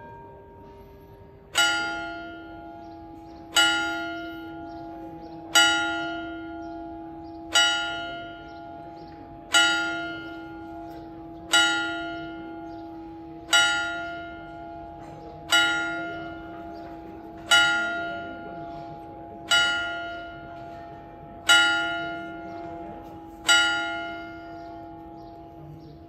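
Clock-tower bell striking noon: twelve strokes of a single bell about two seconds apart, each ringing out and fading before the next.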